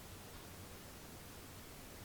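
Faint steady hiss with a low hum: room tone, with no distinct sound.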